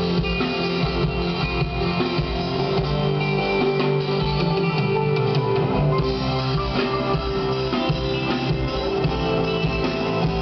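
Live band music with guitar played over a PA during a sound check.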